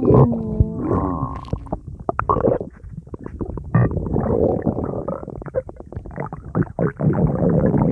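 Stomach rumbling and gurgling: squealing gurgles that glide in pitch about the first second, then a long run of bubbly, crackling pops that swells again near the end.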